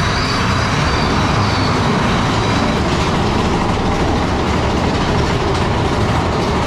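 Big Thunder Mountain Railroad's mine-train coaster running on its track: a loud, steady rumble and rattle of the cars and wheels.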